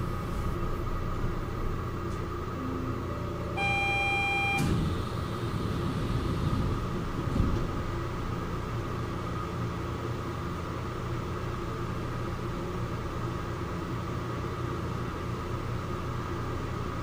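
Kobe Port Liner automated train car humming steadily at a station stop, with a short electronic beep-chime lasting about a second around four seconds in.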